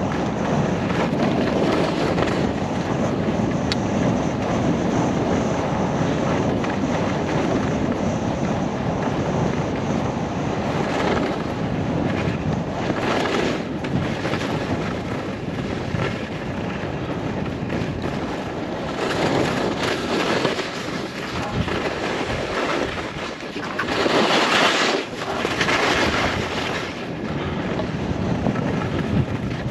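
Wind rushing over the camera microphone during a ski descent, with skis hissing and scraping over packed snow. A few louder scraping stretches come in the second half, as the skis turn.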